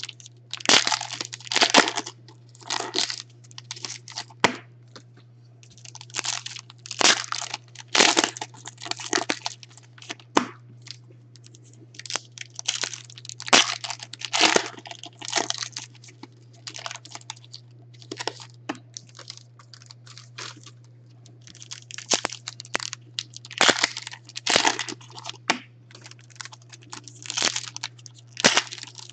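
Foil trading-card pack wrappers crinkling and tearing as they are handled and opened by hand, in irregular crackly bursts about every second, over a faint steady low hum.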